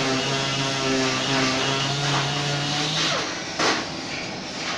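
MIG welding arc crackling over the steady hum of the welding machine, then cutting off about three seconds in as the weld is stopped. A single sharp knock follows shortly after.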